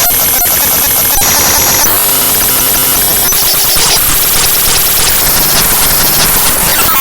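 The raw bytes of the avcodec.dll library file played back as audio: loud, harsh digital noise and buzzing whose texture changes abruptly every second or so.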